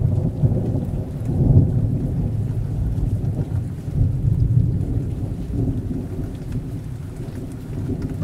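Deep low rumble of an intro sound effect, already loud at the start, swelling again about one and a half and four seconds in, then slowly fading.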